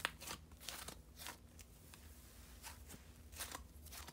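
Fluffy cloud slime squeezed and pulled apart by hand, making faint, short soft rustles and tearing sounds in irregular bursts, a couple each second.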